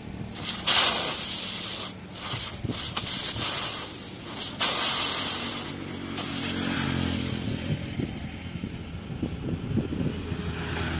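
Air hissing out of a punctured tubeless motorcycle tyre in several loud bursts as a spiral reamer is worked in and out of the hole, stopping after about six seconds. A lower, steady rumble follows.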